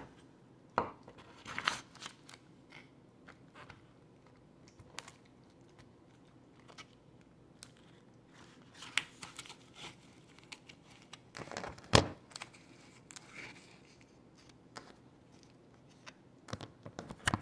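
Aluminium foil pan crinkling and a metal serving utensil scraping and knocking against it in scattered short bursts, the sharpest knock about twelve seconds in.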